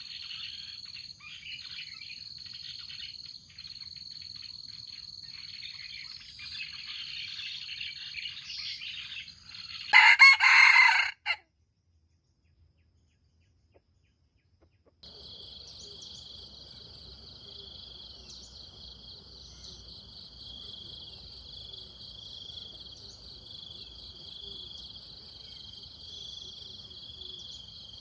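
Small birds chirping over a steady high insect drone; about ten seconds in, a jungle fowl rooster crows once, loud and short, and the sound cuts to dead silence. After a few seconds, insects keep up a steady pulsing trill.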